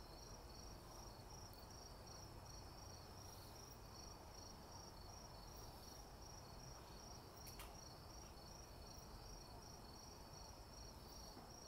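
Near silence, with an insect chirping faintly in a steady, high-pitched pulsing trill, and one soft click about two-thirds of the way in.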